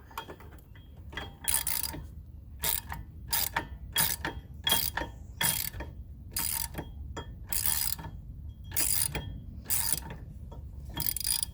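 Ratchet socket wrench turning out a long wheel hub bolt: repeated short bursts of ratchet clicking, about one a second.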